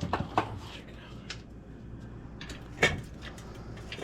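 Scattered clicks and knocks of tire-mounting work, a tire being worked over its rim, with one sharper knock about three seconds in.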